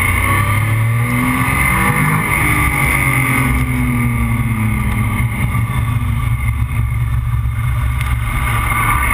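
Vehicle engine running at road speed, its note shifting up and down in the first few seconds and then holding steady, with wind rushing over the microphone.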